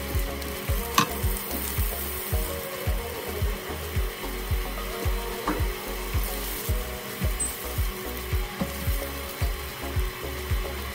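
Background music with a steady beat of about two thumps a second over a bass line, with two sharp clicks, about one second and five and a half seconds in.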